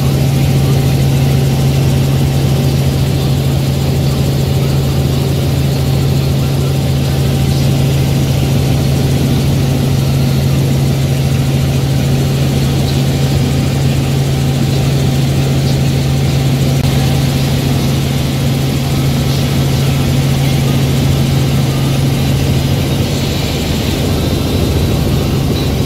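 Helicopter in level flight, heard from inside the cabin: a loud, steady drone of engine and rotor with a strong, constant low hum.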